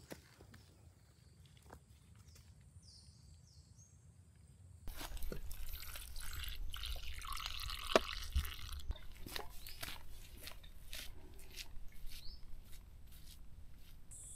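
Liquid poured from a small plastic bottle into a cup of rubber latex on a rubber tree, splashing and dripping, with scattered clicks of handling and one sharp click about halfway through. Before it, a quiet stretch with a few faint bird chirps.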